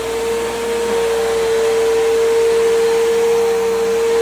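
Bissell PowerGroom bagless upright vacuum cleaner running just after being switched on. Its motor finishes spinning up and settles into a steady whine within the first second.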